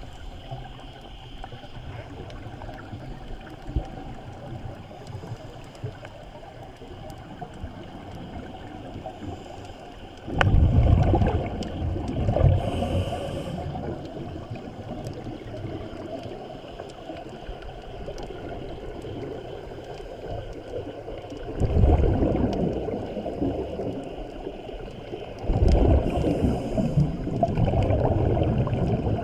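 Scuba regulator exhaust bubbles gurgling past the underwater camera in three surges, about ten, twenty-two and twenty-six seconds in, over a steady underwater hiss with faint scattered clicks.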